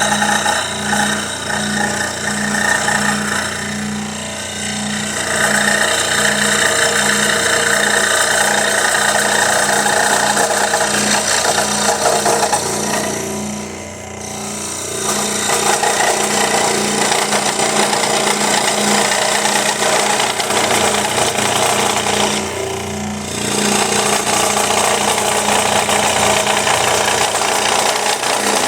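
Scroll saw running and cutting wood, its blade moving up and down, making a steady pulsing hum with a rattle. The cutting noise eases briefly three times.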